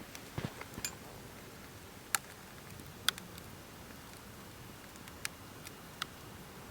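Wood fire burning, with scattered sharp pops and snaps over a faint steady hiss.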